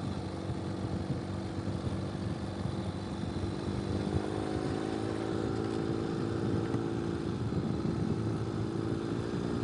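Ural motorcycle's flat-twin engine running steadily under way, its note rising a little around the middle, over the rumble of tyres on a dirt road.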